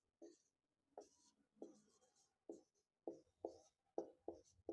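Faint handwriting strokes, about nine short scratches at an uneven pace, coming closer together in the second half.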